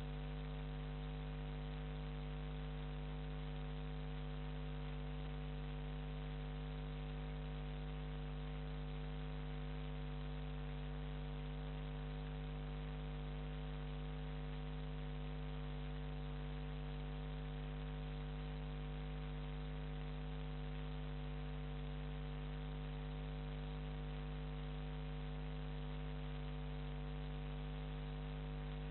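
Steady electrical mains hum at 50 Hz with its overtones, under a low hiss, unchanging throughout.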